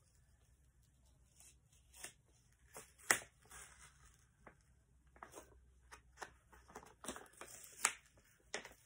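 A paper cutout being slowly peeled off a sheet of paper: faint, scattered rustles and small tearing sounds, with a sharper crackle about three seconds in and another near the end.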